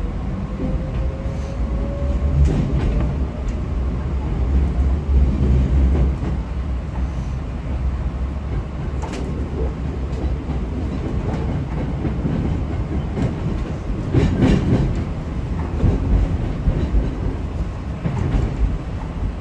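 Hankyu 7000 series electric train running, heard from on board. A rising motor whine fades out about two seconds in as the train gathers speed, over a steady rumble of wheels on rail. About two-thirds of the way through there is a louder burst of wheel clatter.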